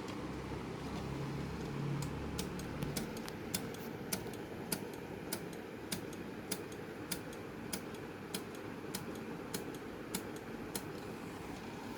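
Sony DVD player's disc drive clicking over and over, a sharp click about every 0.6 seconds over a low steady hum, as it fails to read a CD. The clicks begin a couple of seconds in and stop shortly before the end.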